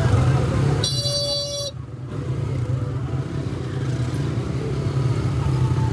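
Busy road traffic with a steady low engine hum; a vehicle horn honks once, briefly, about a second in.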